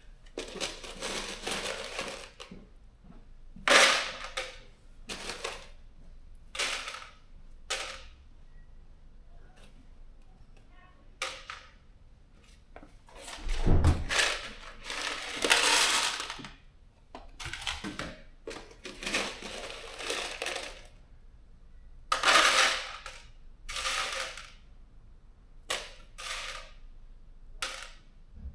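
Loose metal bolts and nuts clattering and rattling in irregular bursts as they are handled, with sharp clicks between them and one duller thud about halfway through.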